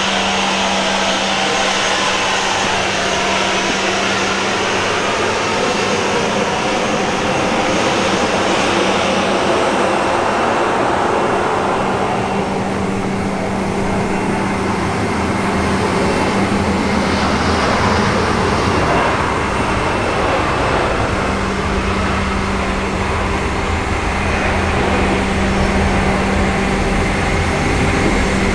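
Steady mechanical drone with a constant low hum, unbroken and without speech, heard inside a parked freighter's cargo hold.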